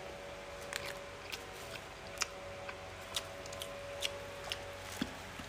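Faint clicks and smacks of people eating by hand from a plastic bag, about two sharp ticks a second, over a faint steady hum.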